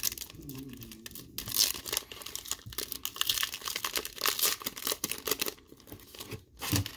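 Cellophane wrapper of a small trading-card cello pack being torn open and peeled back by hand, with irregular crackling and crinkling that thins out near the end.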